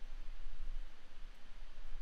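Quiet room tone: a steady low hum with an even hiss, and the faint scratching of a pen writing on paper.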